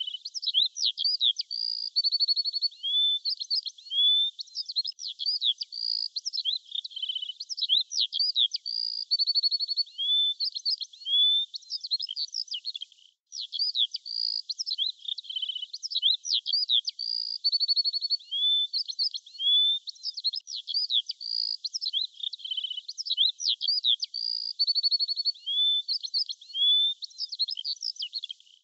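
Songbirds chirping and twittering in a quick, continuous series of high calls and short whistled notes, with a brief break about 13 seconds in.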